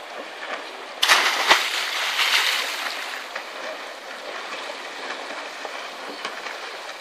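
Jet ski running at speed out on the water, heard from a distance with water noise. About a second in, a sudden loud rush with a sharp knock cuts in and fades over about two seconds.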